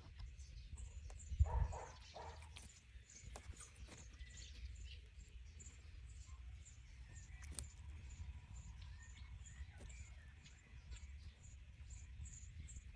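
Outdoor ambience: short high chirps repeat evenly, about two a second, over a low steady rumble. A brief louder sound comes about a second and a half in.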